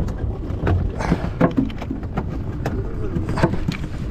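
Steady low rumble of a small fishing boat at sea, with scattered knocks and clicks on board.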